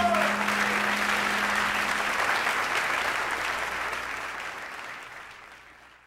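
Live audience applauding at the end of the song as its last note dies away; the applause fades out over the last two seconds.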